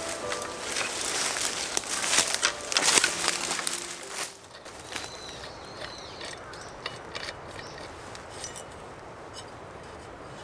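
Dense crunching and rustling of dry leaves and twigs for about four seconds. After that it is quieter, with a few short bird chirps and faint scattered clicks.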